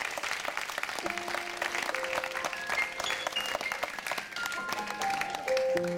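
Audience applauding, with held instrument notes sounding over it one after another from about a second in, stepping up in pitch and building to a louder sustained chord near the end.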